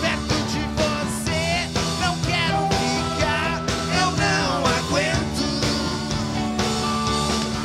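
Rock band playing live: drums, electric guitar and keyboards, among them a Moog synthesizer, under held chords. A wavering, warbling lead line rises and falls above them between about one and five seconds in.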